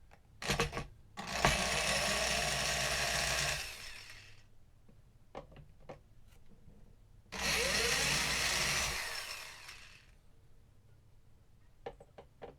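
Power drill driving screws out of the back panel of a guitar speaker cabinet: a short blip, then two runs of a few seconds each, the motor tapering off at the end of each, with small clicks in between.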